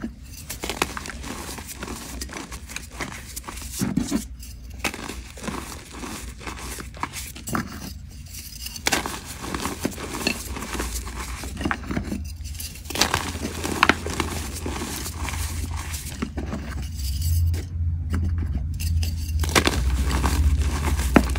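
Powdered gym chalk mixed with charcoal being squeezed and crumbled by hand, a dense crunchy crackling of grains and small lumps with brief pauses between handfuls. A low rumble from the hands pressing the mass grows stronger near the end.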